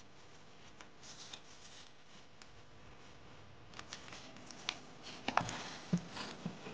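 Faint rustling and handling of adhesive foam padding being stuck onto wooden bed-frame slats, then a run of light clicks and taps in the second half.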